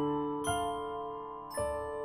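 Background music of slow, sparse struck notes that ring on: a new note comes about half a second in and another near the end.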